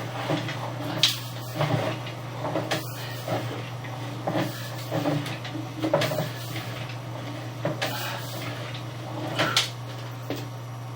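Sewer inspection camera's push cable being worked through a drain pipe: irregular knocks and clunks about once a second over a steady low electrical hum. The camera is being pushed against a point where it stops advancing.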